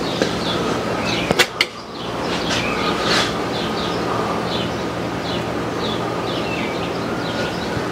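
Steady workshop hum and hiss with many short, quick bird chirps over it, and two sharp clicks about a second and a half in.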